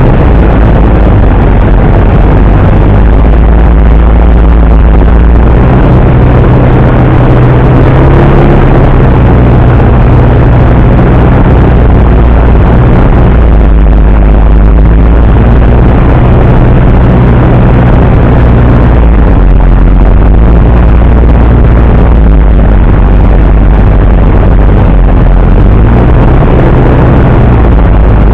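Single-engine piston propeller plane's engine and propeller running steadily in flight, heard loud inside the cockpit: a constant low drone over rushing noise, its tone shifting slightly now and then.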